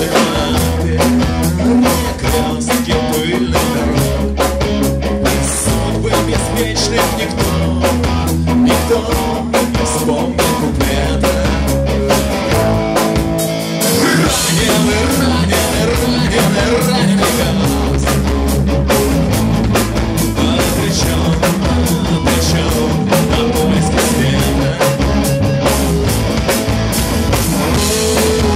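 Live rock band playing: a male singer over electric guitars and a drum kit. About thirteen seconds in, the low end drops out briefly, then the full band comes back in.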